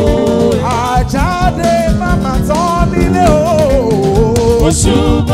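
Live Yoruba gospel praise band music: drums keeping a steady beat under a wavering, bending lead melody line.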